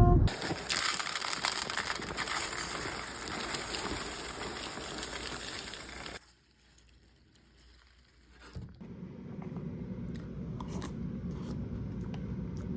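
Cereal packaging crinkling and rustling as it is opened, for about six seconds. Then a sudden cut to silence, followed by a quieter background with a few small clicks.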